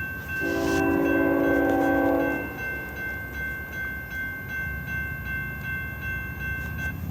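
Locomotive air horn of an approaching CSX intermodal train, sounding one steady chord blast of about two seconds starting about half a second in. A steady high ringing, like a crossing bell, and a low rumble of the train run underneath.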